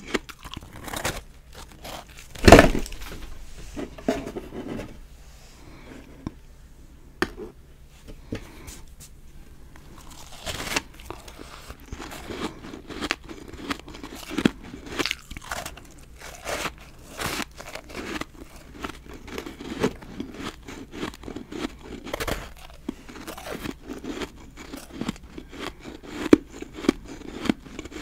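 Bites and chewing of dry, powdery snowballs made of refrozen ice, giving many crisp crunches. The loudest comes about two and a half seconds in, then a quieter spell of a few seconds before the crunching picks up again.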